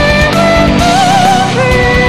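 Rock music: a full band track with a steady drum beat under a melody line whose held notes waver with vibrato.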